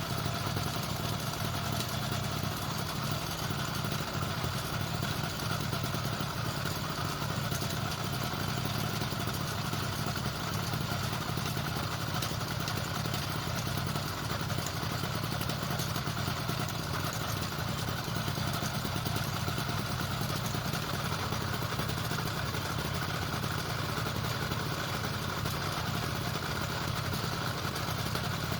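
Motorized bicycle's kit engine running steadily at an even speed, without revving.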